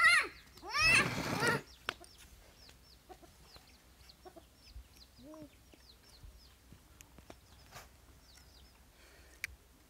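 Chickens calling: a run of loud squawking calls in the first second and a half, then quieter short high cheeps and a couple of low clucks. There is a single sharp click near the end.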